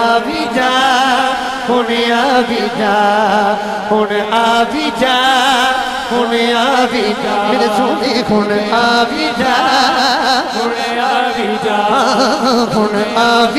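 A Punjabi naat sung unaccompanied by male voices over a microphone and PA: a lead singer draws out a long, ornamented melodic line while a group of backing singers holds the tune with him, and no words are clearly articulated.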